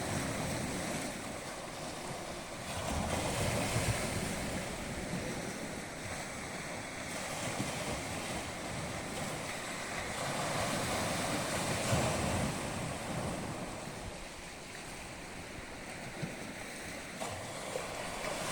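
Sea waves surging and washing onto the shore: a continuous rush of surf that swells and eases every few seconds.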